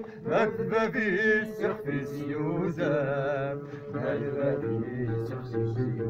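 Music: chant-like singing with a wavering, ornamented melody, over a steady held low tone from about two seconds in.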